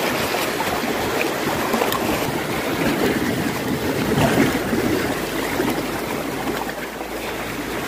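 Small sea waves lapping and washing over shoreline rocks, a steady rushing wash with no distinct splashes.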